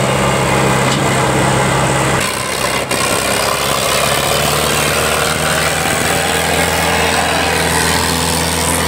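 Two diesel tractor engines, an Indo Farm 3055 DI and a New Holland 3630, running hard under heavy load as the tractors pull against each other in a tug-of-war. The sound is loud and steady, its tone shifting about two seconds in, with a single sharp click a little before three seconds.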